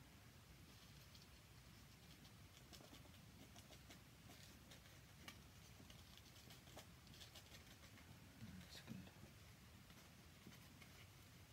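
Near silence, with faint soft scratching and ticking from a fine brush working Indian ink onto paper in short strokes. A brief faint low sound about eight and a half seconds in.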